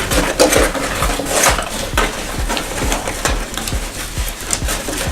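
Microphone packaging being handled and worked open by hand: steady rustling and scraping with many small clicks and knocks.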